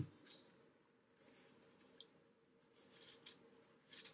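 Scissors snipping faintly, trimming the thread ties of a small handmade journal, with light handling rustles in between: a few quiet snips about a second in and a cluster of them toward the end.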